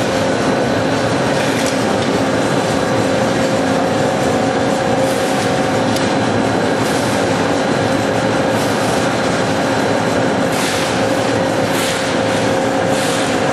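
Wood sawdust pellet mill running at a steady load, a loud continuous mechanical drone with a constant hum, with a few short hissy rushes in the second half as pellets pour out.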